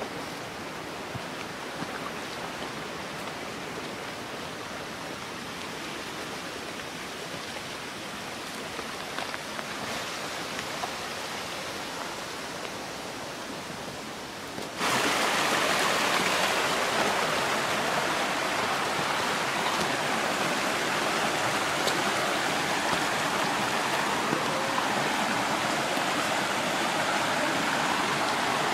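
Water rushing over rocks in a creek, a steady hiss with no clear events. About halfway through it suddenly gets much louder and brighter.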